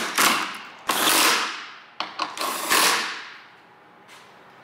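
Handheld power tool on a long socket extension driving the headlight mounting bolts tight, run in about four short bursts in the first three seconds, then stopping.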